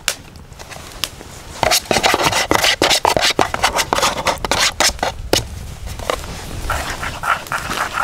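Yogurt-and-spice tandoori marinade being stirred in a container: quick, repeated scraping and rubbing strokes that start after a sharp click and grow busy about two seconds in, then go on as a softer, steadier rubbing.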